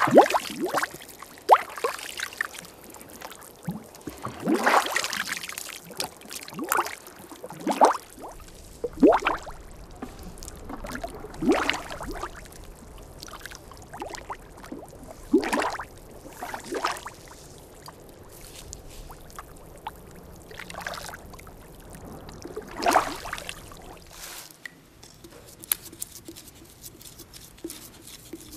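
Wet clay being trodden and kneaded by bare feet and hands, making irregular wet smacks every second or few.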